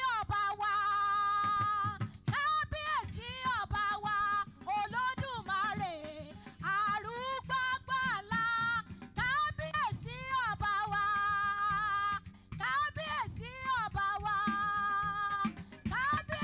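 A woman singing a gospel song with fervour into a microphone, her pitch bending and wavering through short phrases over steady instrumental backing.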